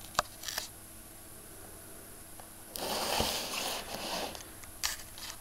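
Cardboard box being turned and slid on a wooden table: a scraping rustle lasting about a second and a half in the middle, with a sharp click near the start and another near the end.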